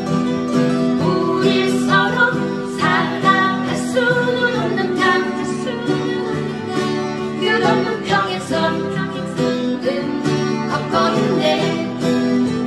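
Acoustic guitar playing a song, with chords and single notes ringing on.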